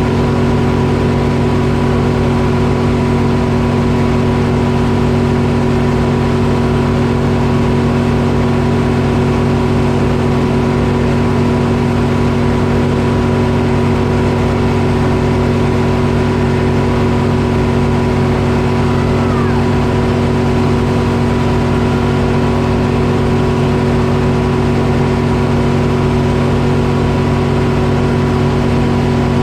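Detroit Diesel engine powering a sawmill, running at a steady speed with an even drone that holds one pitch throughout.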